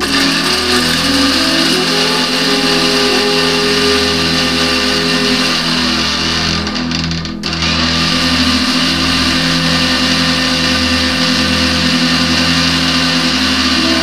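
Electric mixer grinder running at full speed, grinding roasted okra seeds into a fine powder. It dips briefly about seven seconds in, then runs on steadily.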